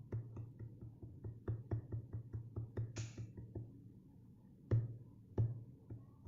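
Drum sounds played from the pads of a Native Instruments Maschine Mikro Mk3: a quick, uneven run of low kick-like hits with sharp clicks on top, a short cymbal-like hiss about three seconds in, then two louder hits near the end.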